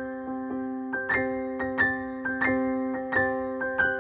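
Background music: a soft electric piano playing a gentle melody of struck notes, about three a second, over held chord tones.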